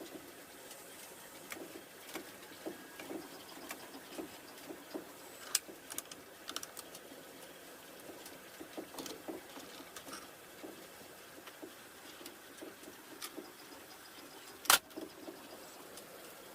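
3D printer with an automated bed-swapping mechanism at work: faint, irregular light clicks and taps, with one sharp click about fifteen seconds in.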